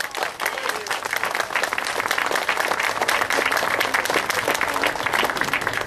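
Crowd applauding, many people clapping steadily.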